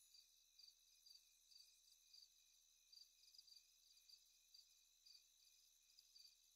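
Near silence with faint night insects chirping in short pulses, about two a second.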